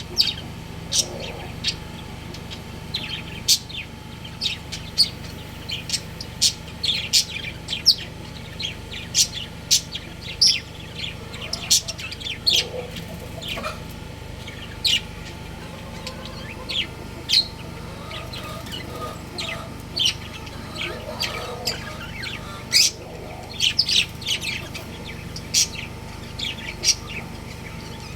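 Budgerigars chirping: many short, high chirps in quick, irregular succession.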